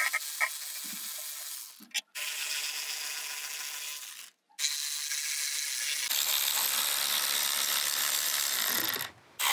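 Milwaukee M12 cordless electric ratchet spinning bolts out of an exhaust-manifold heat shield, running steadily in about four runs with brief breaks between them, the last run the loudest.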